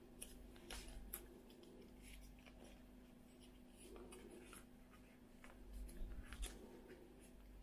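Faint clicks and light rubbing of plastic folding drone propeller blades being handled and sorted in the hands, over a faint steady hum.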